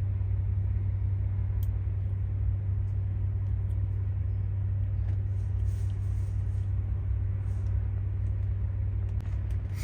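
Steady low mechanical drone that holds unchanged throughout, with a few faint light clicks from small parts being handled, a couple of them near the end.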